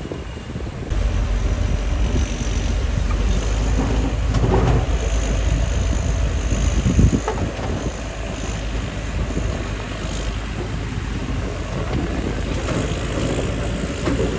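Heavy diesel earthmoving machinery running, a bulldozer and dump trucks at work. The engine noise steps up about a second in, with a single sharp clank near the middle.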